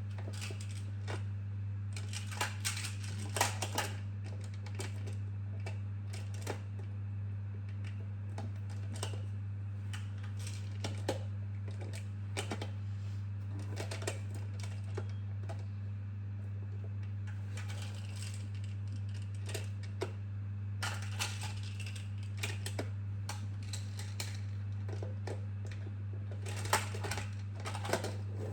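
Plastic magnetic building tiles clicking and clattering as they are handled and snapped together, in irregular clusters of quick clicks. A steady low hum runs underneath.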